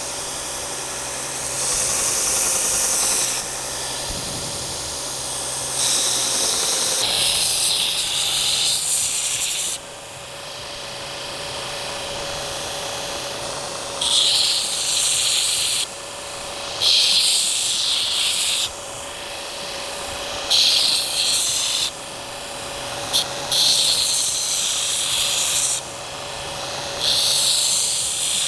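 Power grinder running with a steady whine while the steel knife blade is pressed to it in repeated passes, about eight loud hissing bouts of one to four seconds each.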